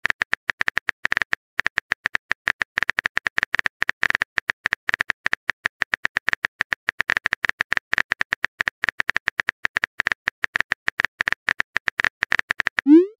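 Rapid, irregular tapping clicks of a phone's on-screen keyboard as a message is typed out, several short sharp ticks a second.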